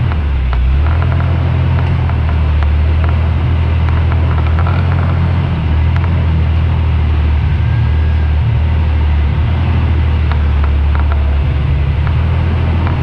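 Jeep engine rumbling steadily at low speed as it crawls over a rock-and-board step, with scattered light knocks and clicks.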